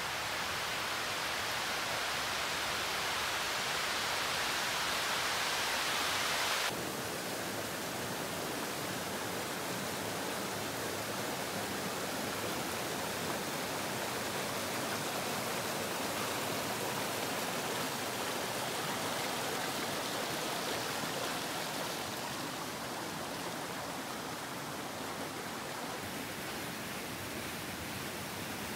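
Shallow rocky stream rushing over boulders and small cascades, a steady hiss of running water. About seven seconds in the sound changes abruptly from a brighter hiss to a fuller, slightly quieter rush.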